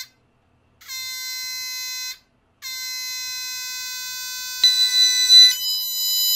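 Electronic buzzer sounding steady, buzzy beeps at one pitch: a beep of about a second and a half, a short pause, then a long held beep. About four and a half seconds in a second, higher tone joins, and a few quick higher notes follow near the end.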